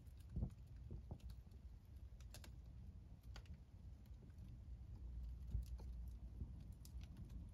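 Wood fire in a fireplace crackling faintly, with irregular small pops and one louder pop about half a second in, over a low, steady rumble of burning.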